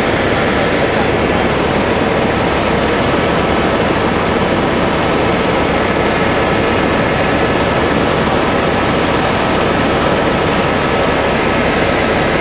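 Aircraft engine and airflow noise inside the cabin: a loud, steady rush with a few faint steady tones above it.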